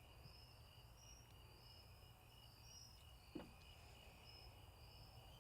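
Near silence, with faint high chirping of crickets repeating steadily and one soft tap a little past three seconds in.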